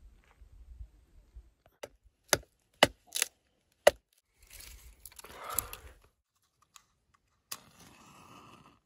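Dry dead wood being snapped by hand for firewood: a run of sharp, separate cracks, then a longer splintering crunch. Near the end comes a short click followed by a brief rustle.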